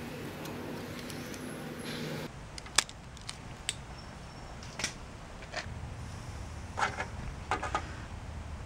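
A steady low hum stops abruptly about two seconds in. Then come scattered sharp clicks and ticks of a hand crimping tool and fingers working small wire connectors, as non-insulated butt splices are crimped onto a replacement diode in a mower engine's kill wire. The loudest click comes about three seconds in, and a quick run of clicks comes near the end.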